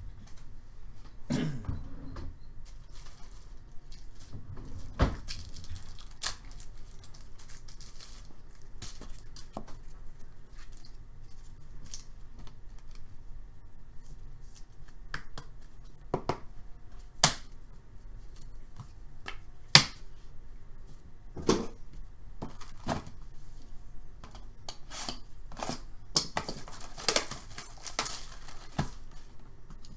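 Scattered clicks and taps of trading cards and plastic card holders being handled on a desk, with a few sharper clicks in the middle. Near the end comes a dense crinkling and tearing as the cellophane shrink-wrap is pulled off a sealed hockey card hobby box.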